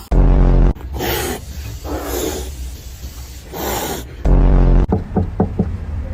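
An animal growling and hissing: two loud, short, low growls about three seconds apart, with breathy hisses between them.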